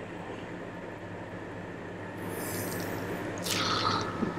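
Solder flux sizzling as a soldering iron melts solder onto a capacitor lead on a circuit board: a faint hiss that swells briefly about three and a half seconds in, over a low steady hum.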